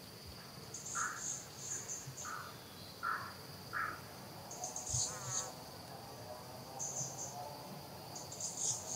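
Insect chorus: a steady high-pitched drone with bursts of cricket-like chirping every second or so. Four short, lower calls come in the first four seconds, and a brief warbling call comes about halfway through.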